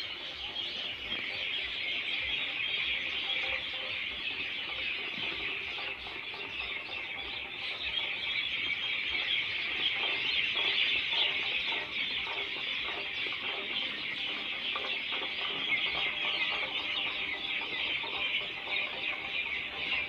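A dense chorus of many birds calling and chattering at once, high-pitched and steady throughout.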